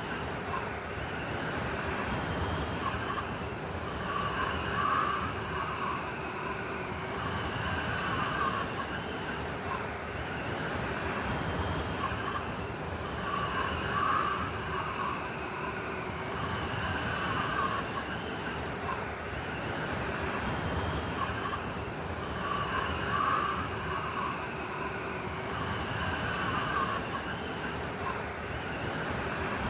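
Blizzard wind: a steady rush with a howling, whistling layer that swells and fades, the swells coming back about every nine seconds.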